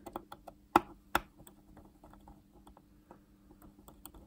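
Light clicks and taps of fingers and a screwdriver working the screws of a small mechanical watch movement in its holder: two sharper knocks about a second in, then a run of faint ticks.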